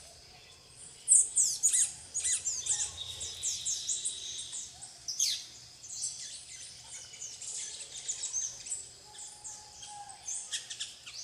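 Plain parakeets (Brotogeris tirica) calling, mixed with the calls of other small birds: a busy run of short, sharp, high-pitched notes in quick irregular succession. A steady high tone runs for about a second and a half near the start.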